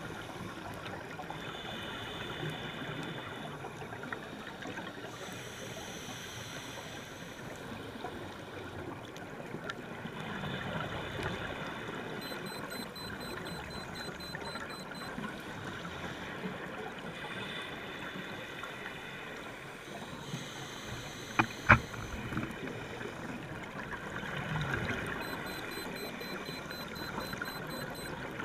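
Underwater ambience from a diver's camera housing: scuba regulator breathing with exhaled bubbles gurgling, swelling every few seconds over a steady hiss. Two sharp clicks a moment apart, the loudest sounds, come about two-thirds of the way in.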